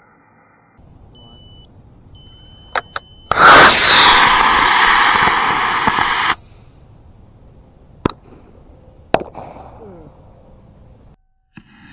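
Model rocket motor firing: a loud rushing hiss about three seconds long that cuts off abruptly, preceded by two short electronic beeps and a couple of sharp clicks. A few more sharp clicks follow near the end.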